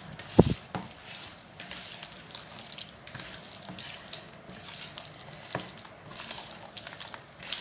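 Chicken being mixed into a thick yogurt-and-spice marinade: irregular wet squishing and stirring sounds, with one low thump about half a second in.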